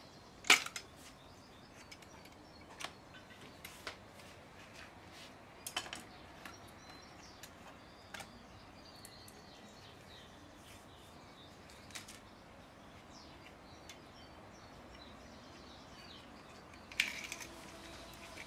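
Scattered clicks and taps of a plastic folding pruning saw being handled, its handle and blade being worked; the sharpest click comes about half a second in and another cluster near the end. Faint bird chirps in the background.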